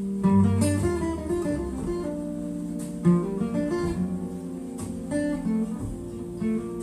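Instrumental break in a recorded song: a guitar picking a melody of separate plucked notes over sustained low accompaniment, played back through hi-fi loudspeakers.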